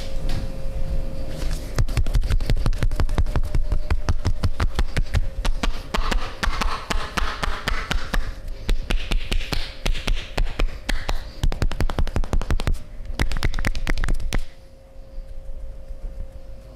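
Rapid percussive massage strokes: hands striking the body in quick succession, many strikes a second, with a brief break near the end before they stop.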